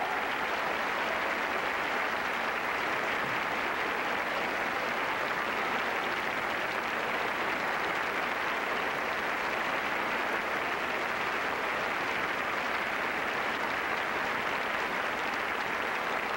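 Audience applauding: a dense, steady ovation in which no single claps stand out.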